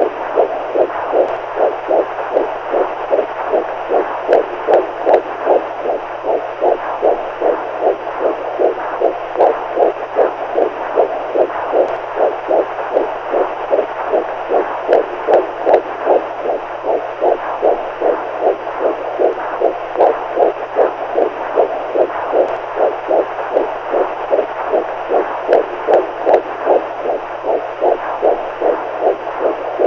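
Heartbeat sound played as a continuous loop: regular, evenly spaced beats, about two a second, over a steady hiss and a faint low hum.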